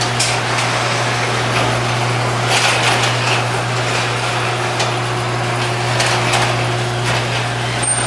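Electric garage door opener running as a sectional metal garage door comes down along its tracks: a steady motor hum with an irregular rattle from the door.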